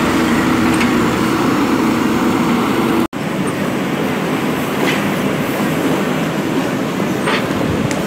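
JCB 3DX backhoe loader's diesel engine running steadily under load while the backhoe digs rubble. The sound breaks off for an instant about three seconds in, and a few faint knocks come through over the engine later.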